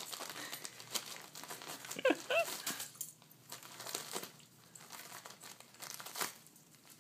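Wrapping paper crinkling and tearing as a dog paws and tugs it off a wrapped plush toy, with one brief pitched sound about two seconds in.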